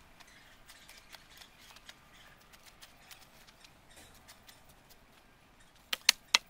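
Spade working garden soil, with faint scattered crunches and scrapes. About six seconds in come four sharp clicks in quick succession.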